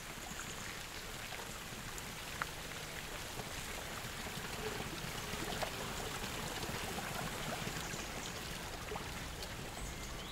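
Water pouring in a thin stream from a stone lion-head fountain spout into a pool, splashing steadily.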